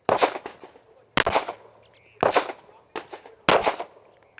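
Four pistol shots fired one at a time about a second apart, a slow, deliberate marksmanship string at a bullseye, each with a short ringing tail. A fainter shot falls between the third and fourth.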